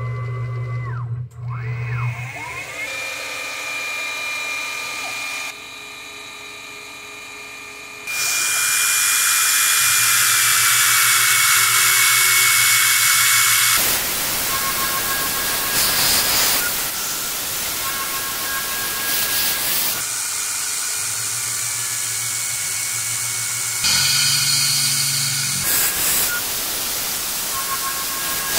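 CNC PM-30 milling machine cutting an aluminium block: the spindle's steady whine, rising in pitch about a second in as it spins up, with a loud hiss from the mist coolant nozzle that comes and goes and is strongest a few seconds past a quarter of the way in.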